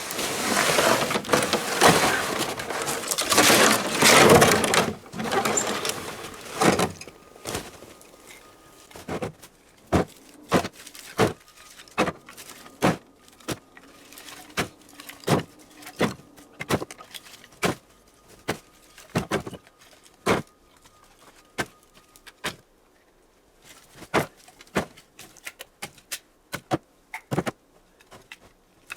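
A rushing, scraping noise for the first several seconds, then pieces of cut firewood knocking one after another as they are loaded onto a sled, roughly one or two sharp knocks a second.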